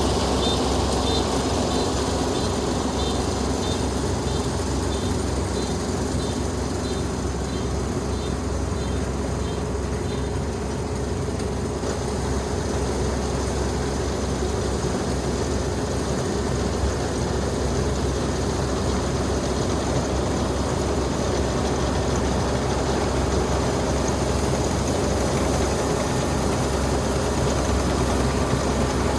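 Dynamax 470 combine harvester running steadily with a continuous engine drone while harvesting rice. A faint high chirp repeats about twice a second for the first ten seconds or so.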